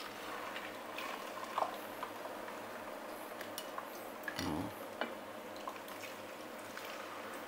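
Hot oil in a frying pan sizzling steadily with scattered small pops and spits as whole fish are laid into it to fry crisp, with a short low thud about halfway through.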